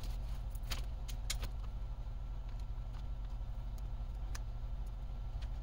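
Light clicks of small metal parts (ball bearings and plastic spur gears) being picked up and set down on a paper-covered workbench, several in quick succession in the first second and a half and a few single ones after, over a steady low hum.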